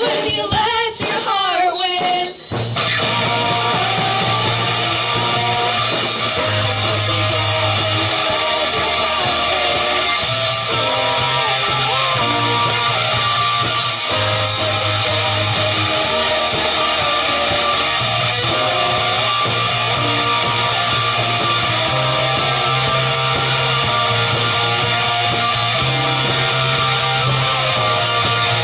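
A kids' garage rock band playing live: electric guitar, bass and drums keep a steady beat, with singing near the start.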